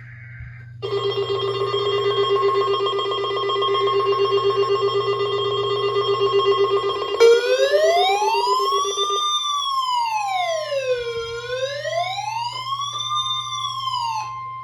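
Emergency alert tones: a brief warbling data burst, then a steady high alert tone under a siren. The siren pulses rapidly for about six seconds, then switches to a slow wail that rises and falls about every four seconds.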